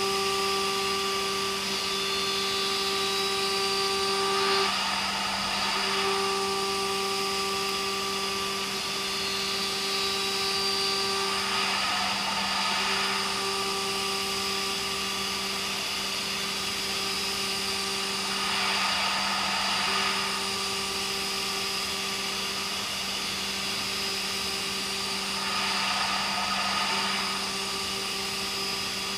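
CB Ferrari GT2000 CNC milling machine cutting H13 tool steel. It gives a steady hum with a higher whine over it, and the whine breaks off about every seven seconds with a brief rushing swell.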